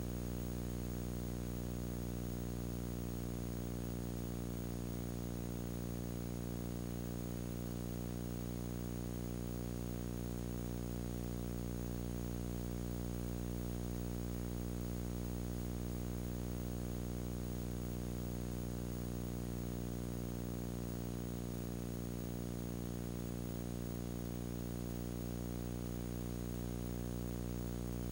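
Steady electrical hum and buzz with many overtones, over a faint hiss, unchanging and with no sound of the scene: mains hum on the videotape's soundtrack.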